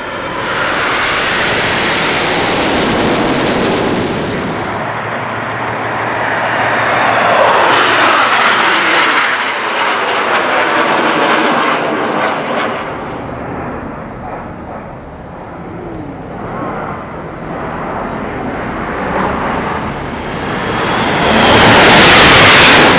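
Formation of Aermacchi MB-339 jet trainers flying past, their turbojet engines swelling and fading as they pass, with sweeping changes in pitch during one pass and the loudest pass shortly before the end.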